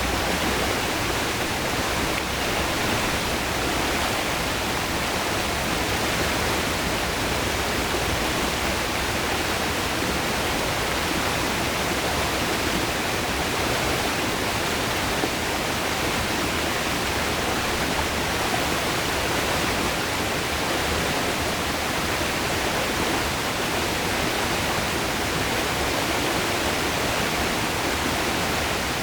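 River water rushing over rocks, a steady, dense rush.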